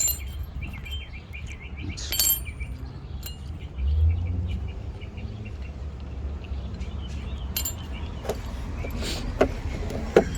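Loose metal adapters of an inner tie rod removal tool set clinking against each other as they are picked through and tried for size: a few sharp clinks, most of them in the last few seconds, over a low steady rumble.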